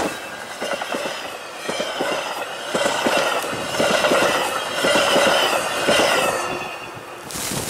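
Metra commuter train's bilevel passenger cars passing close at speed through drifted snow: a rapid run of wheel clicks and knocks over the rail joints, with high wavering squeal from the wheels. A short rush of wind noise near the end as the train clears.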